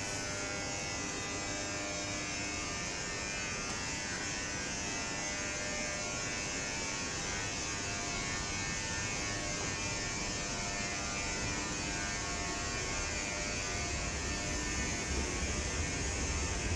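Intercités Corail passenger coaches rolling slowly past on departure, with a steady electrical buzz and hum from the train's equipment. A low rumble grows louder over the last few seconds.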